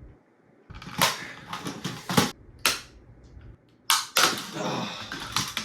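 A handful of sharp clicks and knocks from hard plastic toy-blaster parts being handled and pried apart, with rustling between them. The loudest knocks come a little before the midpoint and again just after it.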